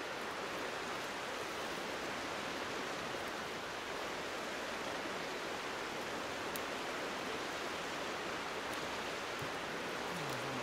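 Steady rushing noise of water, with a few faint crackles from a campfire.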